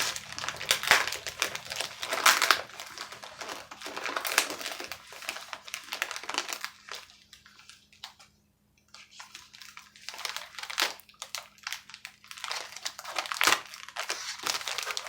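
Shipping packaging being handled and opened: irregular crinkling and rustling, with a short pause about halfway and a few sharp clicks and snaps in the second half.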